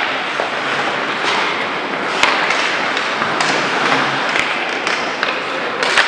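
Ice hockey play on a rink: several sharp clacks and knocks of sticks, puck and boards over a steady wash of rink noise, the loudest knock a little over two seconds in.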